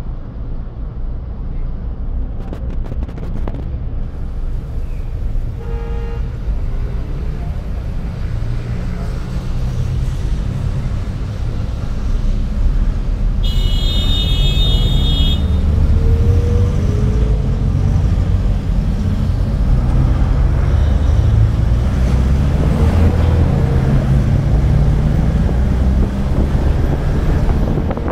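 City street traffic heard from a moving vehicle: a steady low rumble of engines and tyres that grows louder about halfway through, with engines rising in pitch as vehicles pass. A short horn toot about six seconds in and a longer high-pitched horn blast around fourteen seconds in.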